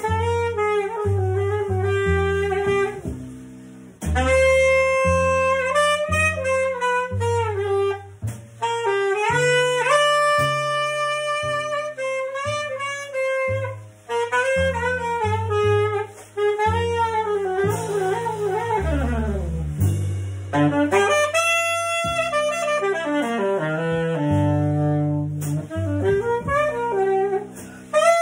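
Small jazz group playing: alto saxophone carrying the melody in phrases with short breaks, over upright bass notes moving a couple of times a second and a drum set's cymbals.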